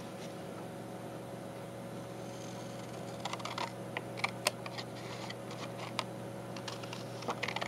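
Scissors cutting thick paper paint sample cards: a scatter of short, crisp snips and clicks, starting about three seconds in, over a steady low hum.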